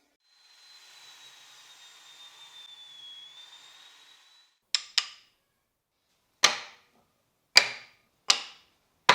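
A faint hiss with a thin, steady high whine for about four seconds, then sharp knocks: two in quick succession, then about one a second, each dying away quickly.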